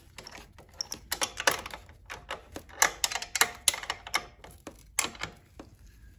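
Small ratchet wrench clicking in short, irregular runs as the nuts are driven onto the studs that hold a fork-mounted wind deflector.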